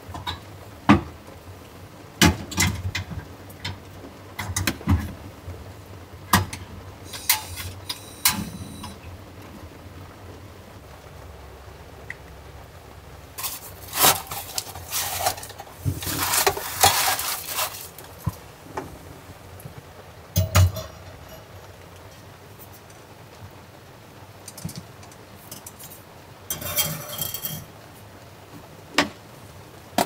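Camp cooking gear being handled on a wooden counter: sharp clicks and knocks as a gas canister is fitted into a cassette stove, a longer rustle of a bag being rummaged about halfway through, and scattered clinks. A faint steady hiss of rain runs underneath.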